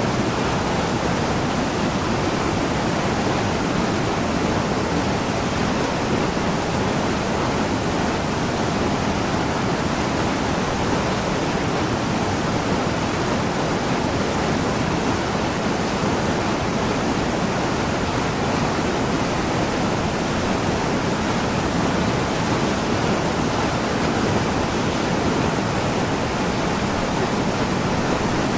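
Mountain stream with a small waterfall pouring over boulders: a steady, unbroken rush of water.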